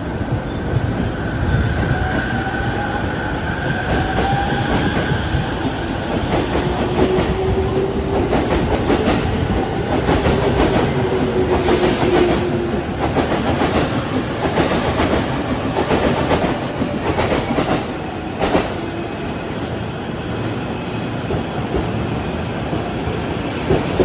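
Tokyo Metro 15000-series electric train pulling away and gathering speed: the traction motors whine in several tones that rise and shift, over a steady running rumble, with wheels clattering over rail joints.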